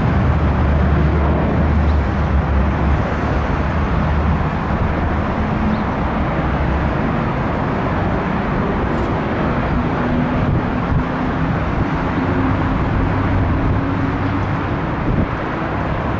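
McDonnell Douglas MD-11 trijet on final approach, its engines a steady rumbling jet noise with a deep low rumble that eases about halfway through.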